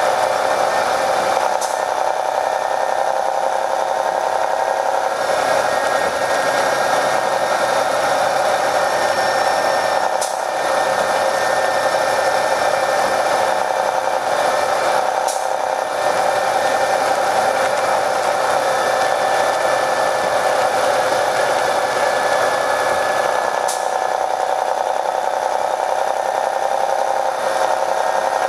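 Detroit Diesel Series 60 engine of an MCI D4500 coach bus, heard from inside the bus while it runs: a steady machine drone. The recording has been processed to cancel passengers' talk, which leaves the drone thin and oddly coloured, with little low rumble.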